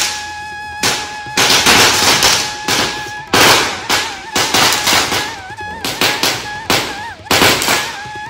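Firecrackers going off in a rapid, irregular run of sharp bangs and crackling pops, thickest about two to four seconds in.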